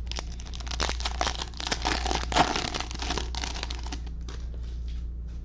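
Cellophane wrapper of a trading-card cello pack being torn open and crinkled, a dense crackle for about four seconds that peaks in the middle, then a few light clicks as the cards are handled.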